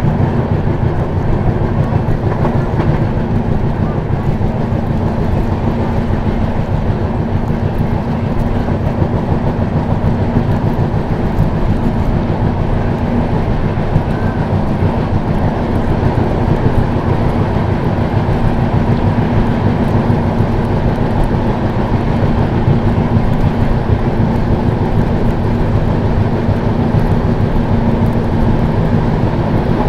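Moving passenger train heard from on board: a steady rumble and rattle of the coach running on the track, even throughout.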